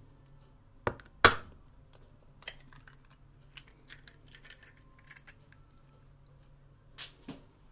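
A hen's egg rapped twice against the edge of a plastic microwave egg poacher to crack it, two sharp clicks about a second in. Faint crackles of the shell as it is pulled apart follow, then two lighter knocks near the end.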